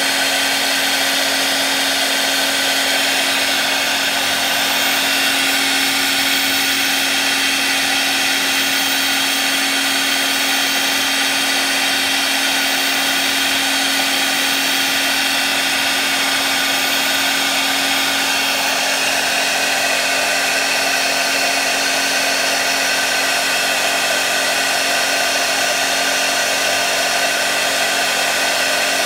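CNC milling spindle running steadily with a small end mill cutting a cane reed blank: a continuous motor whine over the noise of the cutter in the cane.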